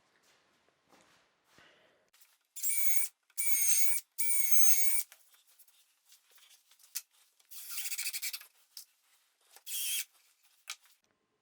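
A hand tool rasping against a workpiece: three quick strokes about two and a half seconds in, then two more near the end, each with a faint high ring.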